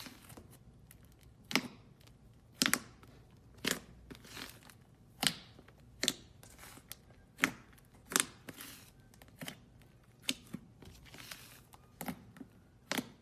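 Slime made with plasticine being handled, giving sharp clicking pops about once a second with faint crinkly noise between them.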